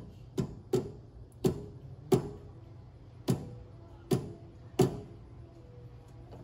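Seven light knocks at uneven intervals from a yellow soft-faced mallet tapping a metal bar held in a Vevor MX 400 mini lathe's chuck. Each knock leaves a short metallic ring. The taps nudge the bar to run true under a dial indicator.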